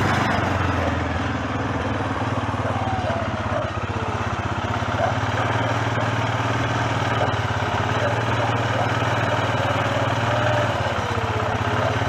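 An engine running steadily, an even low drone.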